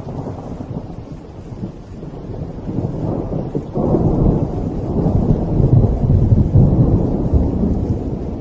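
Thunder rolling over rain: a low, heavy rumble that swells about a third of the way in, turns sharply louder just before the middle, and stays loud for most of the rest.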